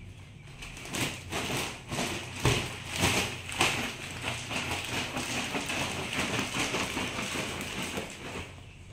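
Thin plastic diaper package crinkling and rustling as it is handled and diapers are pulled and shaken out of it, with sharper crackles about two to three seconds in.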